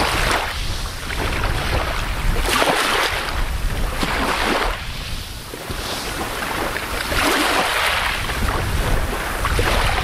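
Small waves washing gently onto a sandy beach: a soft surf hiss that swells and falls back about every two seconds. A low rumble of wind on the microphone runs under it.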